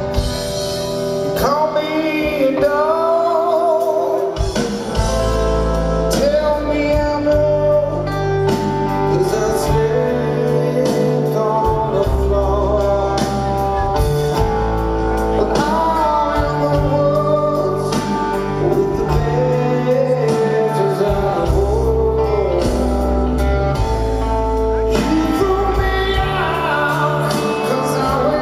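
Live rock band playing, heard from the audience: a male lead voice sings long, wavering lines over electric guitars, bass and drums.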